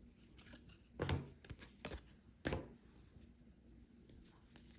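Trading cards being handled and flipped through: a few short soft slaps and rustles, the loudest about a second in and again about two and a half seconds in.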